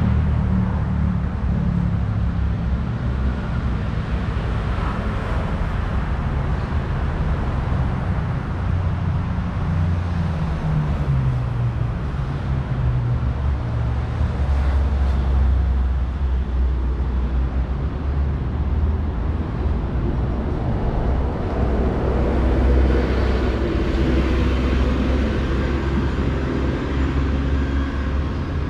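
Road traffic on a city avenue: cars and other motor vehicles passing with a steady low engine rumble. One engine's note falls about ten seconds in.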